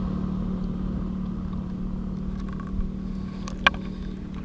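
An engine running at a steady speed, with a constant hum, and a single sharp click about three and a half seconds in.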